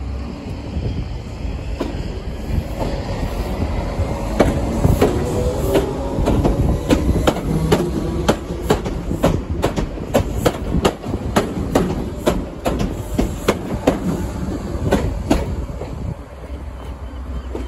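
Southern Class 313 electric multiple unit running past along the platform over a low rumble. Its wheels click over the rail joints in a steady quick rhythm from about four seconds in, fading out near the end.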